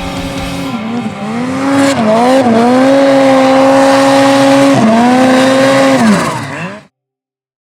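Snowmobile engine revving up and holding high revs for a few seconds, with a brief dip, then falling off; the sound cuts off abruptly near the end.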